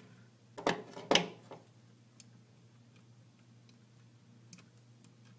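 Hands working small parts into a laser-cut wooden 3D-printer frame: two sharp knocks about half a second apart, about a second in, then a few faint clicks.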